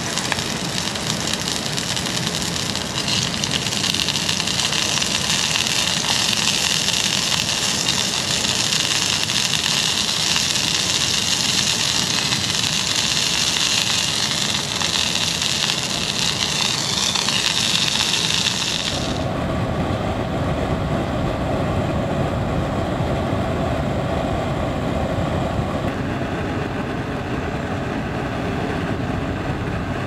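Beef chunks sizzling hard in hot oil in a small pan on a canister camp stove, a loud steady high hiss. About two-thirds of the way through the sizzle cuts off suddenly and gives way to a lower bubbling as the pan's contents simmer in liquid.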